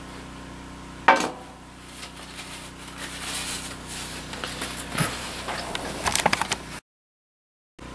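Handling of a cast iron frying pan as it is picked up and set on a wood stove: a sharp knock about a second in, scattered clicks, and a quick clatter of taps near the end. The sound then cuts out completely for about a second.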